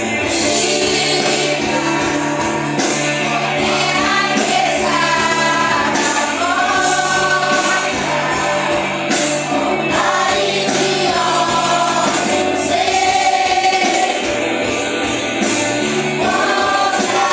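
Live gospel worship song: a group of voices singing over a band with steady bass and cymbals.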